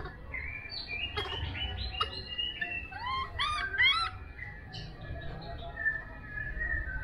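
High-pitched animal calls: a series of chirps and squeaks, with a quick run of arched, rising-and-falling squeaks about three seconds in and thinner, steadier chirps afterwards.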